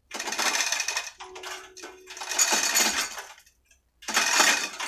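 Steel chain of a manual chain hoist rattling and clinking as it is hauled hand over hand, lifting a truck engine. There are four pulls of about a second each, with a short pause before the last.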